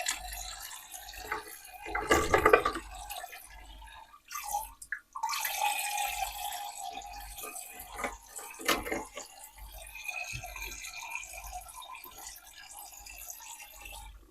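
Water trickling and dripping from a toy sink's faucet into its basin, with a few short knocks, the loudest about two seconds in and again about nine seconds in.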